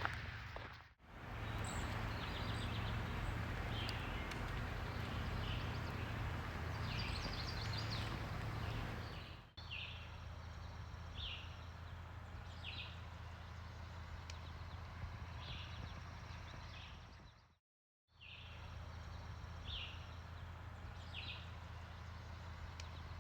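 A songbird singing short phrases, one every second or two, over a steady low rumble. The sound drops out briefly three times.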